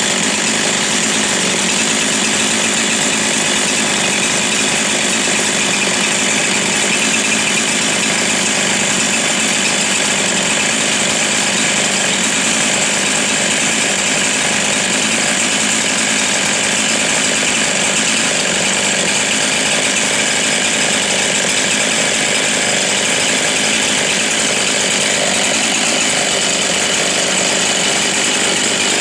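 Husqvarna 372 XP chainsaw's 70cc two-stroke engine running steadily at an even pitch and level.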